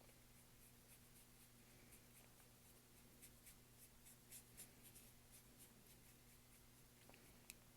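Near silence with faint strokes and dabs of a paintbrush on canvas, clustered in the middle and with one sharper tick near the end, over a low steady hum.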